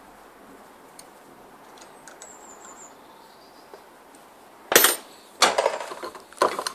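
Allen key clicking and scraping against a Range Rover P38 air suspension compressor housing as the housing grub screw is turned in: faint ticks, then a sharp clack about two-thirds of the way in and rattling scrapes after it.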